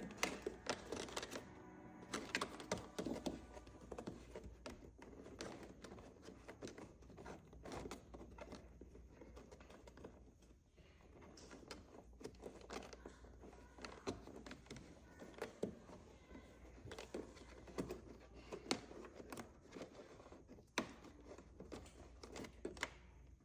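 Scattered small clicks and light knocks of hands twisting a USB charger port into its mount and tucking wiring in, over a faint low hum.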